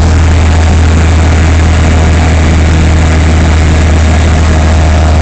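Engine and road noise inside the cabin of a four-by-four off-road vehicle cruising at steady speed: a loud, deep, steady hum that does not change.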